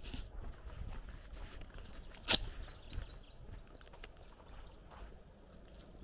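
Footsteps on a dirt lane, with birds chirping. About two seconds in comes a single sharp click, the loudest sound, followed at once by a quick run of short, high bird chirps.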